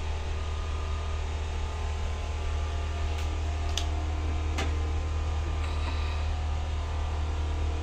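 Steady machine hum with a deep rumble throughout, and a few light metallic clicks in the middle as the aluminium pot lid is handled and lifted.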